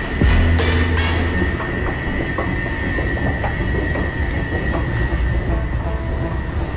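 Escalator running, with the camera on it: a steady mechanical rumble and a steady high whine that fades about five seconds in.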